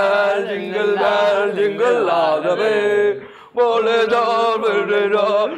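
Male voices chanting a tune together, held notes bending up and down, with a brief break just after three seconds in.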